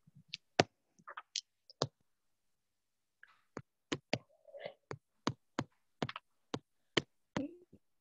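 A series of sharp clicks and taps, scattered at first, then a fairly even run of about three a second through the second half.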